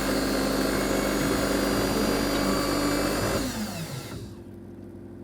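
Automatic espresso machine's motor running with a steady whir, then winding down with a falling pitch about three and a half seconds in, leaving a quieter low hum.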